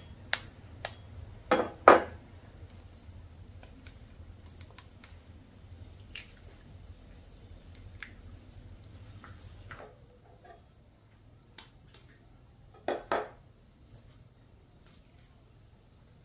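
Scattered sharp knocks and clinks of objects being handled, loudest in a cluster in the first two seconds and a close pair near the end, over a low steady hum that stops about ten seconds in.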